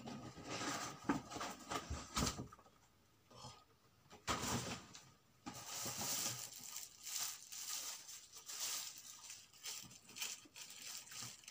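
Paper and plastic gift packaging being handled and rummaged through, rustling and crinkling in bursts with a short lull about three seconds in.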